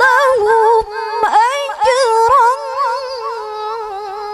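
A woman reciting the Quran in the melodic tilawah style, singing long ornamented phrases with wavering pitch and short breaks, then holding a long, steady lower note.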